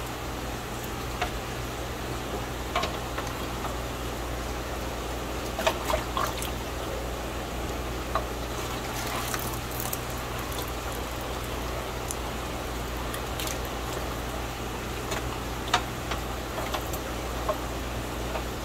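Steady low hum and trickling water in an aquarium fish room, with scattered small splashes and knocks as fish are netted out of a tank and tipped into buckets.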